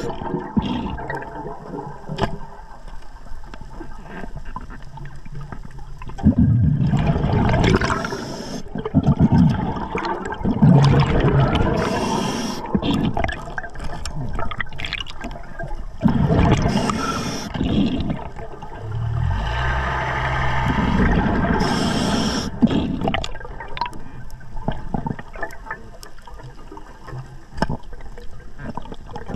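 Scuba diver breathing through a regulator underwater: exhaled bubbles rush and gurgle out in bursts every few seconds, with a brief low hum about two-thirds through.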